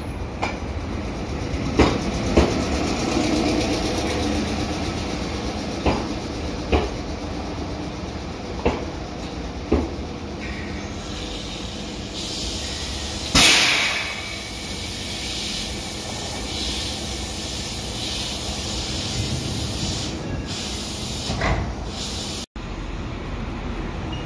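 Meitetsu electric train running on the rails: a steady rumble with the wheels clacking over rail joints, roughly in pairs. About thirteen seconds in comes a sudden loud rush of noise that fades over a second. The sound cuts out for an instant near the end.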